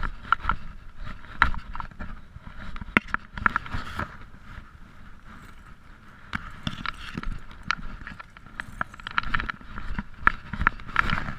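Irregular clicks and taps from hands working fishing line, bait and fish on concrete, over a low wind rumble on the microphone.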